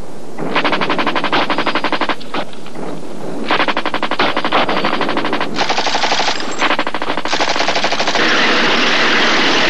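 Automatic gunfire in several long bursts of rapid shots with short gaps between them, giving way near the end to a steady rushing noise.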